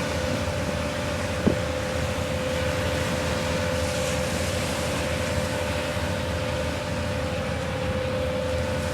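The Cross Sound ferry Caribbean's machinery running at the dock: a steady drone with a constant mid-pitched hum over a low rumble. Wind blows on the microphone, and there is a single light knock about a second and a half in.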